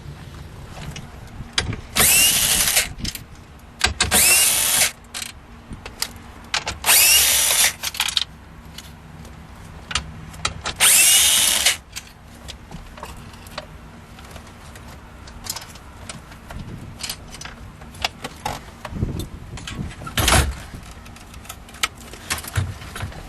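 Cordless drill/driver running in four short bursts of about a second each, backing out screws, with light clicks and handling noise between.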